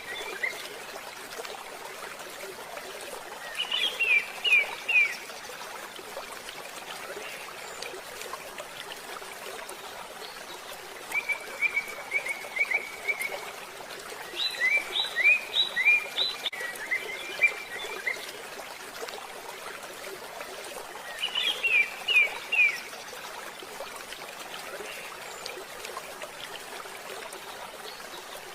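Wild animal calls: four bouts of short, quick chirping notes, each a run of about four to a dozen notes, over a steady background hiss.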